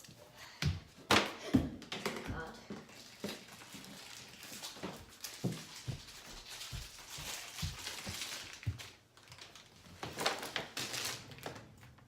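Rustling and crinkling of plastic packaging being handled, with scattered knocks and thumps from objects being moved. The loudest knocks come about a second in.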